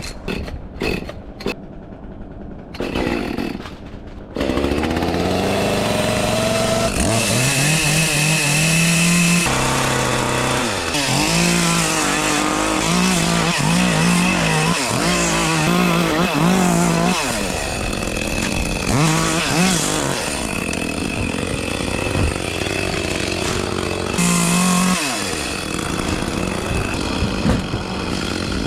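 Small gasoline chainsaw comes up to full throttle about four seconds in, after a few quieter seconds with some knocks. It then runs hard, its engine pitch repeatedly rising and dipping as the throttle is worked and the chain cuts into tree branches.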